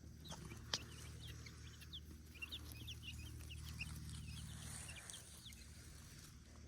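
Baby chicks peeping: a dense scatter of short, high cheeps, over a low steady hum, with one sharp click near the start.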